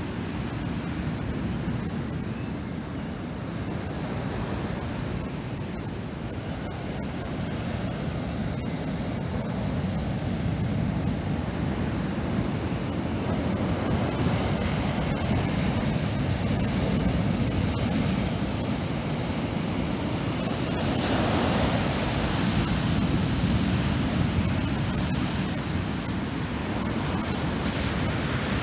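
Heavy storm surf breaking and washing up the beach as a steady rushing noise, with wind rumbling on the microphone. It grows louder partway through, with a hissier surge a little past two-thirds of the way in.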